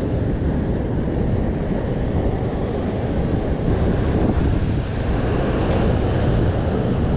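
Wind buffeting the action camera's microphone as a steady low rumble, with surf washing over the rocks beneath it.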